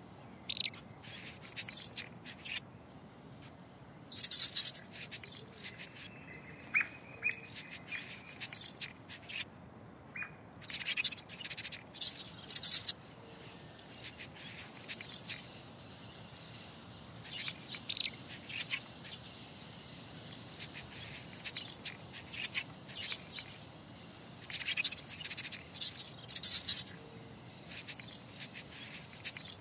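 Mouse squeaking sound effect: clusters of quick, high-pitched squeaks, each group lasting under a second to about a second and a half, coming again and again with short pauses between.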